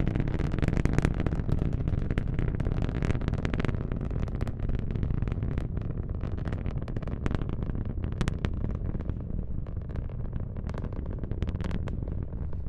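Falcon 9 rocket's nine Merlin engines at launch: a deep rumble full of sharp crackles. The crackling thins out and the sound eases through the later seconds.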